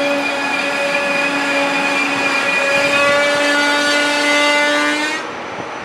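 Deutsche Bahn ICE electric high-speed train moving along the platform, its traction drive whining in several steady tones that begin rising in pitch about halfway through as the train picks up speed. The sound cuts off suddenly near the end.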